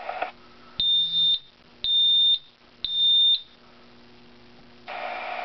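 Vocal smoke detector in drill mode sounding three high-pitched beeps of about half a second each, spaced about a second apart: the temporal-three fire evacuation pattern. Near the end its recorded voice warning starts again.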